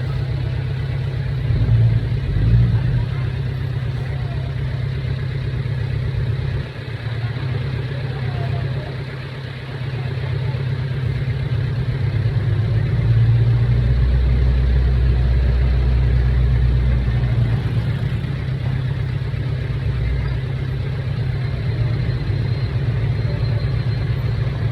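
An earthmoving machine's engine running with a steady low rumble, rising in level about two seconds in and again for a few seconds in the middle, then settling back.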